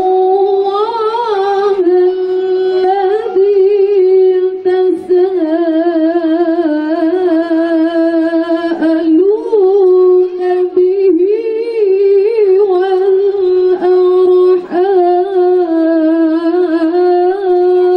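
Melodic Quran recitation: one voice chanting in long held notes with wavering, melismatic ornaments, the phrase running almost without a break.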